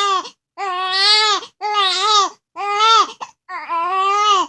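A newborn baby, about a month old, crying in four wails of about a second each with short breaths between, the end of an earlier wail just before them. The crying is a fit of upset over a bout of hiccups.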